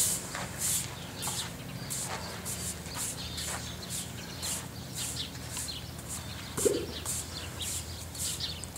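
Rhythmic scrubbing of a stiff brush over the hide of an Asian elephant lying on its side, about two hissing strokes a second. One brief louder sound comes about two-thirds of the way through.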